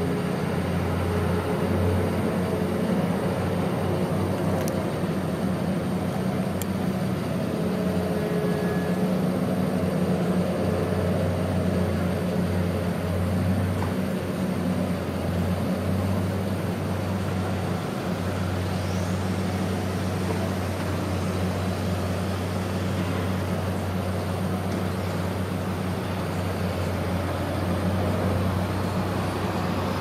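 Dipper dredge's machinery running with a steady, deep mechanical hum while it works its bucket.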